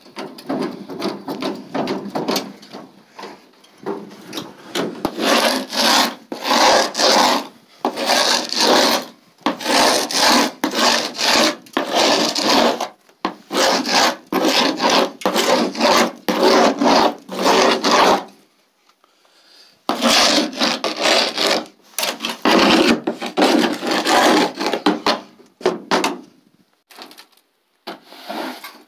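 A broom sweeping dirt along a ribbed pickup truck bed, its bristles scraping in quick repeated strokes, with a short pause about two-thirds of the way through.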